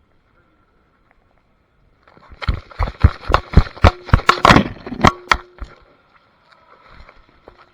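A person running over rough ground: about a dozen heavy footfalls with scuffing, about three a second, starting about two seconds in and fading out after three and a half seconds.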